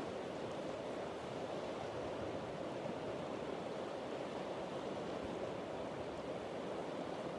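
River water rushing steadily, an even unbroken wash of flowing current.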